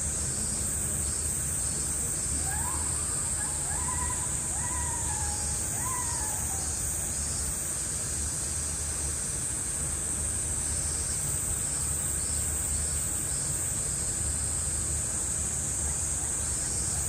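Summer cicadas shrilling steadily, over a low outdoor rumble. A few short high calls that rise and fall come between about two and seven seconds in.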